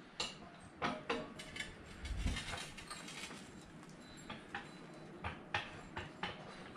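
Irregular light metallic clicks and taps, with a dull thump about two seconds in, from a hydraulic floor jack as its long handle is worked.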